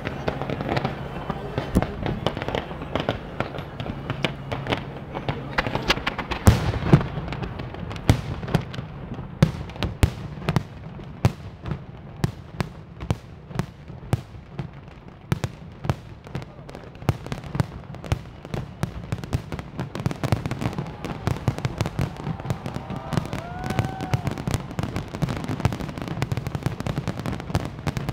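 Fireworks display: a dense run of sharp bangs and crackling shell bursts, with the loudest booms about six to seven seconds in.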